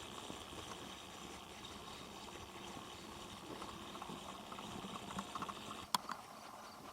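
Steady running-water noise, with a sharp click about six seconds in.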